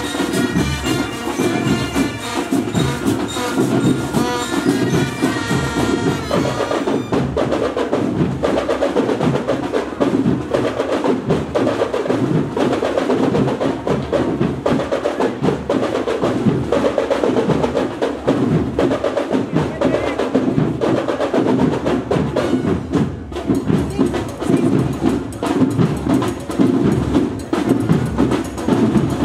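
School marching band music: drums playing a steady, driving beat, with a melodic line on top that is clearest in the first few seconds and then gives way mostly to the drums.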